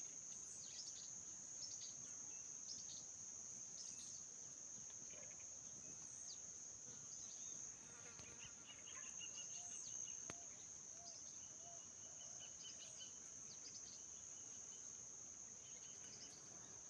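Faint countryside ambience: a steady high-pitched insect drone, typical of crickets, with scattered short chirps and a few brief trills from small birds calling.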